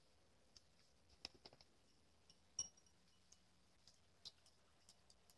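Near silence: faint room tone with a dozen or so scattered soft clicks and taps, the loudest a little before halfway.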